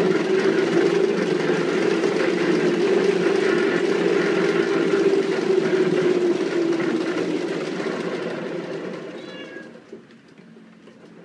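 Large cat exercise wheel rumbling steadily as a cat runs in it. The rumble dies away about eight seconds in as the wheel slows.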